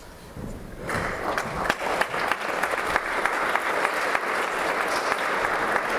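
Concert audience applauding, the clapping beginning about a second in and then holding steady.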